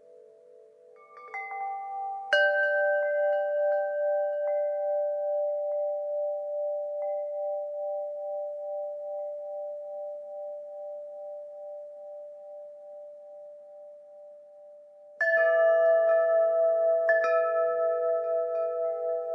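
Wind chimes struck in two clusters, about two seconds in and again about fifteen seconds in. Each leaves several clear ringing tones that fade slowly with a gentle wavering.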